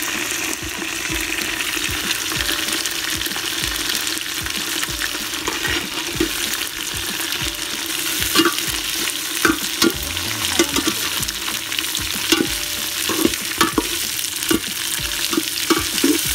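Sliced red onions frying in hot oil in an aluminium pot, a steady sizzle, with a metal blade scraping and clinking against the pot as they are stirred. The scrapes come more often in the second half.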